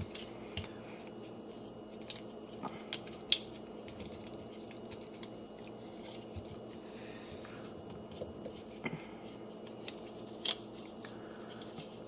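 Plastic parts of a Transformers Twin Twist action figure clicking and snapping as its joints are turned and folded by hand during transformation: scattered single clicks over a faint steady hum.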